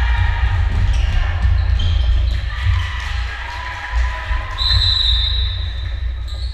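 Basketball bouncing on a gymnasium court, with short high-pitched squeaks, the loudest near the end, over a steady low rumble in the hall.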